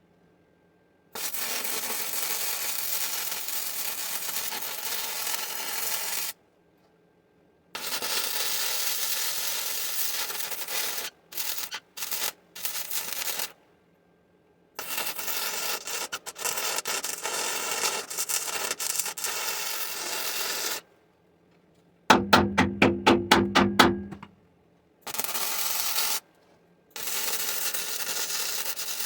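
Electric welding on the steel seam of a tractor loader bucket: several bursts of steady hissing crackle, each a few seconds long, starting and stopping abruptly. About two-thirds of the way through, a short burst of rhythmic percussive music is the loudest sound.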